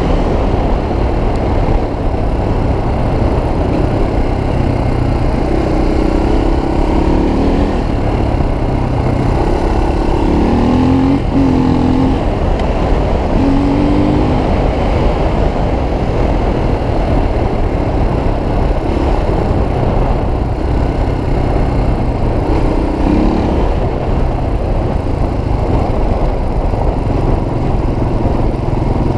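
Suzuki DR350 dirt bike's single-cylinder four-stroke engine running while riding. The revs rise and fall several times as the throttle opens and closes.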